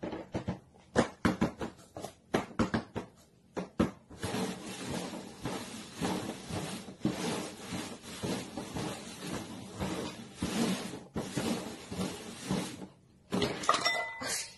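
Paper cups knocked down and tapped on a cardboard box in a quick run of clicks, then slid and shuffled across the cardboard in a continuous scraping noise with short pauses. A brief louder noise comes near the end.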